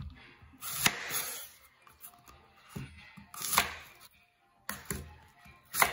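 Kitchen knife slicing through a raw apple and striking a wooden cutting board: several sharp cuts, irregularly spaced about a second apart, the loudest near the end.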